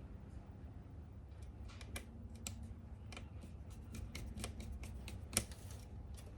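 Irregular light clicks and taps of small screws and a screwdriver on a laptop's plastic and metal chassis during reassembly, growing busier after the first second and a half, with one sharper click a little past five seconds in, over a low steady hum.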